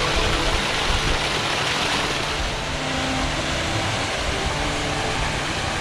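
Mountain stream rushing and splashing over granite boulders in a steady, loud rush of water, with faint held notes of background music underneath.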